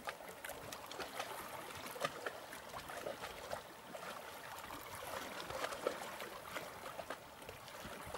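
Small sea waves lapping against shoreline rocks: a steady wash of water with many little splashes and trickles.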